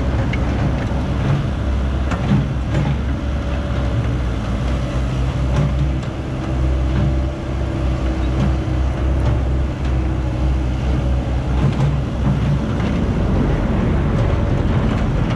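Caterpillar 312B hydraulic excavator working under load: its diesel engine drones steadily as it digs and swings, with a higher steady tone over it partway through.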